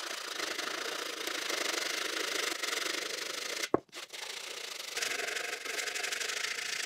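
Hand sanding of a wooden seat's edge with a round abrasive pad: a steady scratchy rubbing of grit on wood, breaking off for a moment a little past halfway with a short click.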